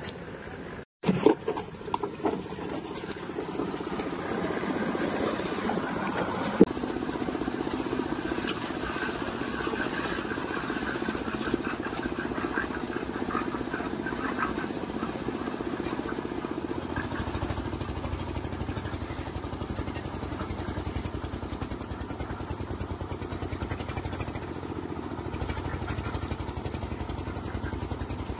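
Small 7 HP single-cylinder 180-type diesel engine running steadily, driving a mini concrete lift. There are a few loud clanks just after a break about a second in, and the running note turns deeper and heavier about two-thirds of the way through.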